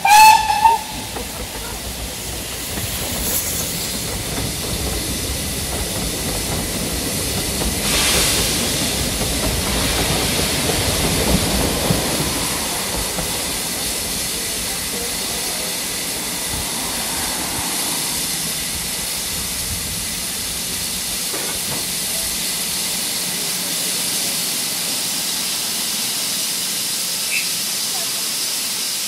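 Steam locomotive on a heritage railway: a short whistle note at the very start, then the hiss of steam and the rumble of the train, strongest around ten seconds in, easing to a steady hiss of steam.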